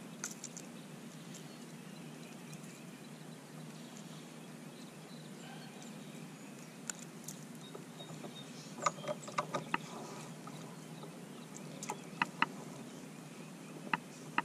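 Small sharp clicks and taps of a hook and lure being worked out of a just-caught smallmouth bass's mouth in a kayak, in a few quick clusters, over a steady low hum.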